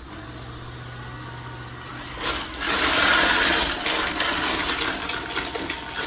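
iRobot Roomba s9 robot vacuum starting up: a steady low hum, then about two seconds in its suction motor spins up into a loud rushing whoosh that holds, with scattered sharp clicks of popcorn kernels being swept in.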